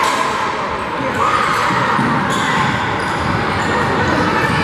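Basketball game in a gym: the ball bouncing on the hardwood floor and a few short sneaker squeaks as players run up court, over the steady murmur of the crowd.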